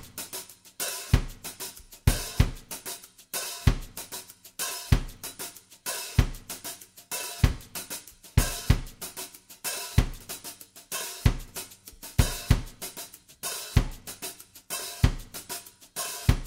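Background music in a drums-only passage: kick drum, snare and hi-hat or cymbal playing a steady beat with no melody, the heavy kick landing about every second and a quarter.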